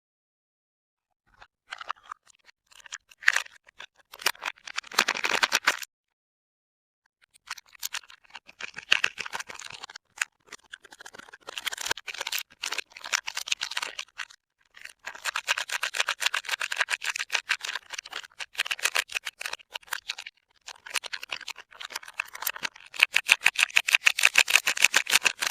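Crinkling and rustling of a soap bar's wrapper being unwrapped by hand, in bursts with short pauses between them, ending in a fast, loud run of crackles.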